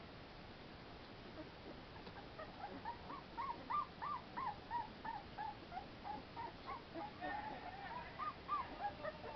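Young American Pit Bull Terrier puppies whimpering: a run of short, high cries that rise and fall, about two or three a second, starting about two seconds in.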